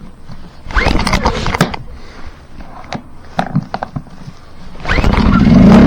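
A few clicks and knocks, then about five seconds in a Champion dual-fuel generator's single-cylinder engine is pull-started and catches, running steadily on propane with the choke on.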